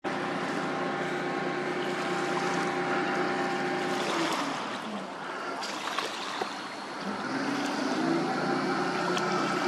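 The tug Denza Tugger's engine running hard under load as it tows a grounded sixty-foot schooner off the beach on a towline. Its steady hum drops away about four seconds in and comes back, slightly rising, near the end.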